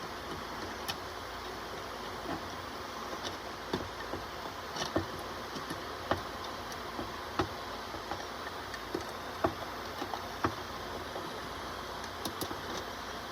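A 3D printer running: a steady fan-like hum with irregular light clicks and ticks, roughly one a second.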